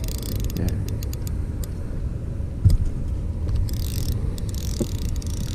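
Uneven low rumble of wind on the microphone, with faint scattered clicks and one brief thump about two and a half seconds in.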